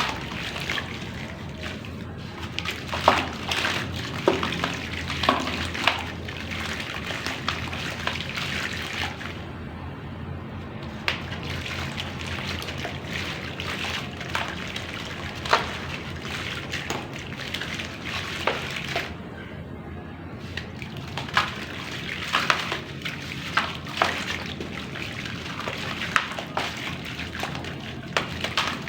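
Dry black clay crumbling into water: irregular plops and splashes over a steady watery hiss.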